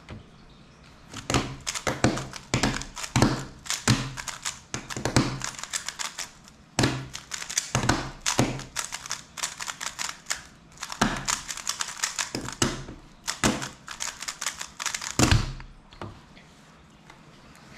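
MoYu WeiLong WRM 2021 3x3 speedcube being turned one-handed at speed: rapid bursts of clacking turns with brief pauses between them. About fifteen seconds in, a heavier thump as the solve is stopped on the timer.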